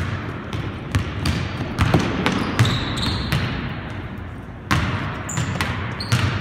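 Basketball bouncing on a hardwood gym floor in irregular dribbles and catches, with sneakers squeaking briefly now and then as players cut and stop.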